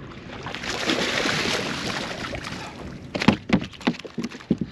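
A hooked striped bass thrashing and splashing at the surface beside the boat, then a quick run of loud thumps and slaps about three seconds in as the fish is swung aboard and flops on the boat deck.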